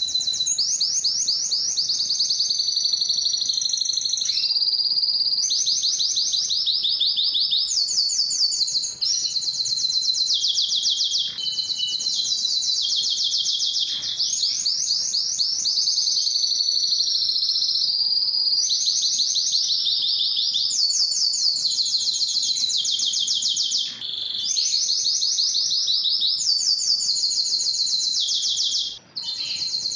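Spanish timbrado canary singing a continuous song of fast rolls and trills, made of rapidly repeated high notes that switch to a new phrase every second or two, with a few brief breaks.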